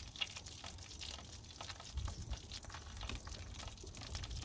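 Faint sizzling and crackling of chicken cooking on a hot charcoal grill grate, with scattered small pops over a low rumble.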